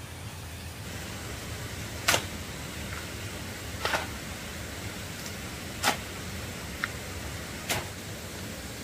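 Four short, sharp scraping strikes at an even pace, about one every two seconds, over a steady low background hum.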